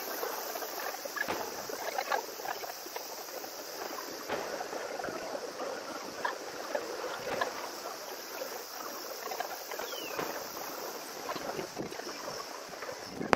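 Distant fireworks shells bursting as irregular sharp pops and crackles over a steady hiss of outdoor background noise. The recording is sped up, so the reports come quick and close together.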